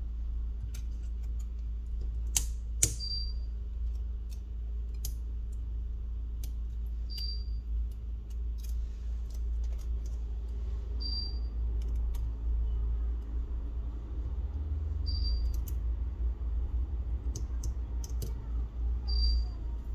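Small sharp clicks and taps of tools and small parts being handled while a smartphone is taken apart, over a steady low hum. A short high beep recurs about every four seconds.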